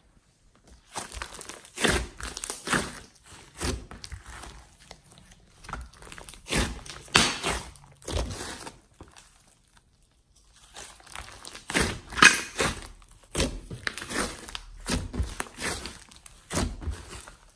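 Hands squishing, folding and stretching thick green slime mixed with clay and small beads, giving irregular sticky crackles, pops and squelches. There is a brief lull just after the start and another about halfway through.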